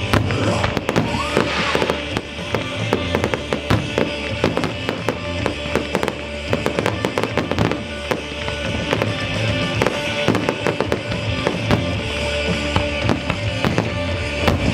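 Display fireworks going off in quick succession: a dense run of aerial shell bangs and crackle, many reports a second with no let-up. Music plays underneath.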